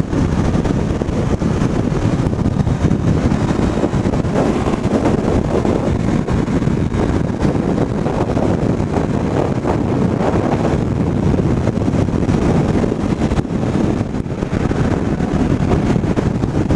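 Loud, steady low rush of wind over a motorcycle rider's helmet microphone at highway speed, about 60 mph on a Honda CBR500, blended with the bike's running noise.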